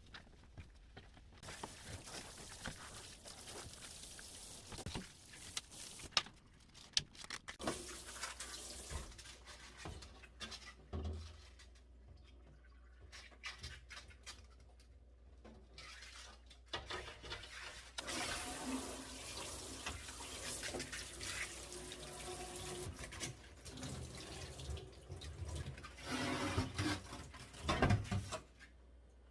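Tap water running into a sink in two long stretches, with scattered light knocks and clinks.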